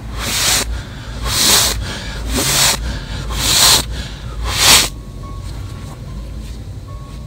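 Five loud, hissing bursts, about one a second, each about half a second long, over a steady low hum.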